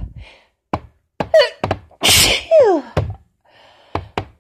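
A woman sneezing hard once, about halfway through, after a quick gasping intake of breath, in a fit of strong sneezes from a cold combined with allergies. Several short thuds come before and after the sneeze.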